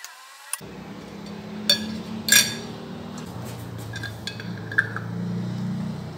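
A steel ladle clinks sharply on a glass jar twice as hot zucchini caviar is ladled in, followed by lighter ticks as the screw lid is put on the jar. A steady low hum runs underneath from about half a second in.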